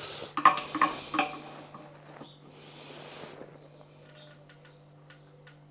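A few sharp clicks and knocks in the first second and a half, the loudest about half a second in, as an adjustable spanner works a threaded plumbing fitting on the water heater. Then a brief rustle and a few faint ticks.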